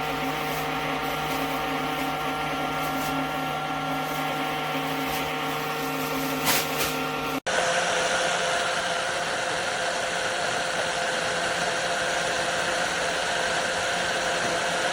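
Small USB-rechargeable portable blender's motor running steadily with a whine, with a couple of short knocks about six and a half seconds in. The sound cuts off abruptly about seven seconds in, and the motor then carries on with a different pitch.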